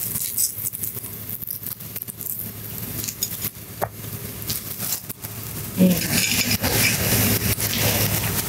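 Cutlery clinking lightly against a plate as food is tasted, a few scattered clicks. About six seconds in, a louder, denser noise comes in.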